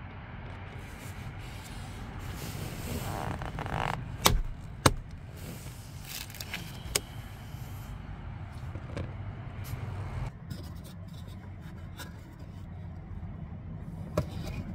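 Car seat cover being worked loose with a hook tool: a rustling scrape of the upholstery, then a few sharp clicks as plastic seat hooks pop off the seat frame. A steady low hum sits underneath.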